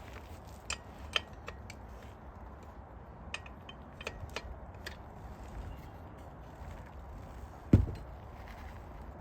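Scattered light clicks and knocks of bike parts and tools being handled, with one heavy thud of something set down about three-quarters of the way through.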